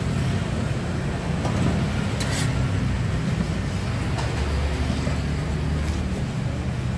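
Steady low mechanical rumble, like an engine running in the background, with a few light clicks.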